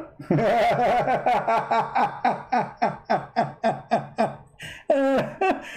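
A man laughing in a long run of short "ha" bursts, about four a second, falling off after about four seconds, with one more short burst near the end.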